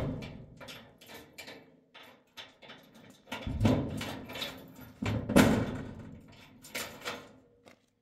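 Irregular knocks and clatter, with two louder thuds about three and a half and five and a half seconds in.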